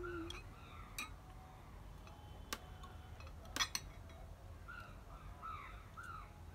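Metal spoon and fork clinking against bowls a few times, the loudest a quick double clink about three and a half seconds in. In the second half a series of short falling calls repeats in the background.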